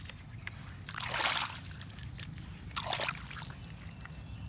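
Water trickling and sloshing over toy vehicles being washed, with two short louder splashes, about a second in and about three seconds in, and scattered small clicks.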